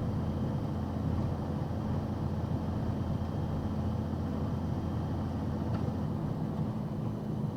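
Box truck engine and road noise while driving: a steady low drone with a constant hum.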